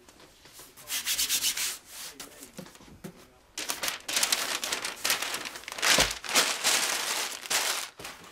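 Quick back-and-forth rubbing strokes on the edge of a book's text block, in two bouts: a short one about a second in and a longer, louder one from about three and a half seconds in.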